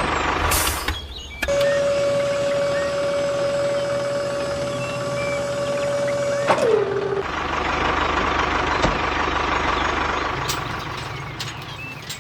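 A small engine running steadily, broken by abrupt cuts. In the middle a steady high whine holds for about five seconds, then drops in pitch and stops.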